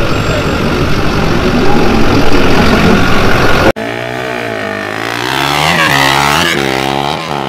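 A pickup truck's engine running hard in a burnout: a dense rumble that cuts off abruptly a little under four seconds in. Then a sport quad's engine revving as it launches down the drag strip, its pitch rising and dropping in repeated sweeps as it goes up through the gears.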